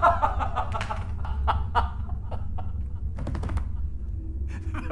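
A man laughing, in several short breathy laughs, over a low hum.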